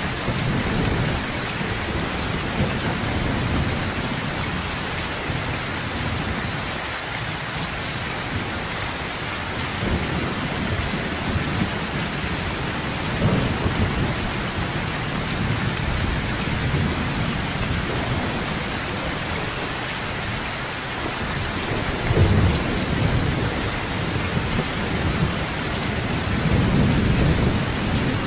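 Steady heavy rain pouring, with thunder rumbling low several times; the loudest rumbles come about two-thirds of the way through and near the end.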